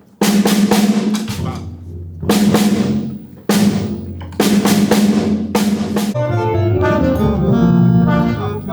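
Big band sound check: a drum kit struck a handful of times, each hit followed by a long cymbal ring, with a bass playing low notes underneath from about a second in. Around six seconds in the drums stop and a run of pitched instrument notes takes over.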